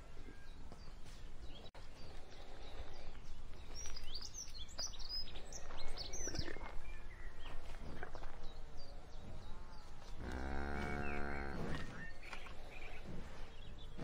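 A cow mooing once, one low drawn-out call of about two seconds near the end, over pasture ambience. Small birds chirp in quick high calls around four to six seconds in, and there are a few short crunches of grass being cropped.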